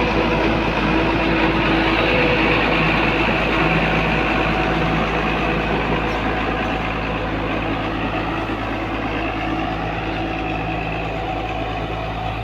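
PC240 tracked excavator's diesel engine running steadily, slowly growing fainter.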